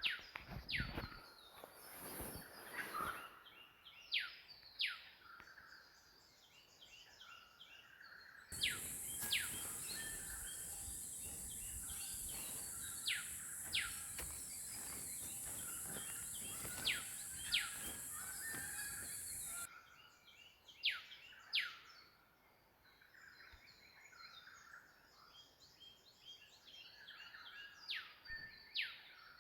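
Wild birds calling in the bush: repeated sharp, quickly falling whistled calls, often two in quick succession, over softer chirping. A steady high-pitched hiss joins in for about eleven seconds in the middle.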